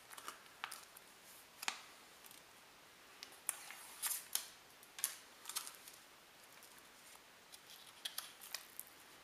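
Foil food pouch crinkling and crackling in the hands as vanilla pudding is squeezed out of it into a bowl: faint scattered sharp crackles, busiest in the middle and again near the end.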